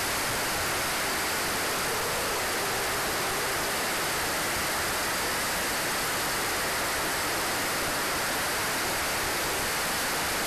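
Steady, even rushing hiss on board the RC jet in fast flight, with no change in level or pitch and no distinct whine or clicks.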